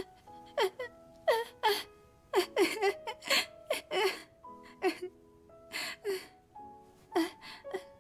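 A voice sobbing in many short, falling sobs and whimpers, over soft sustained music.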